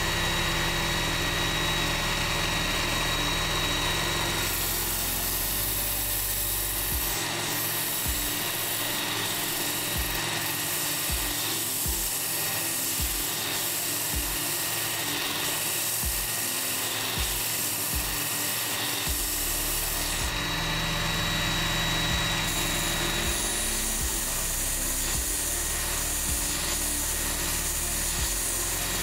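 Work Sharp electric belt sharpener running with a steady motor whine while a steel hoof knife blade is drawn repeatedly along its 120-grit abrasive belt, alternating sides, with a grinding rub of steel on the belt.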